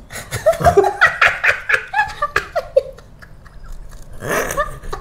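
A woman giggling and laughing, with close-up bites and chewing of a fried snack; another short burst of laughter near the end.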